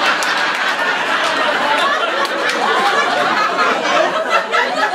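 Audience laughing, a dense, steady wash of many voices.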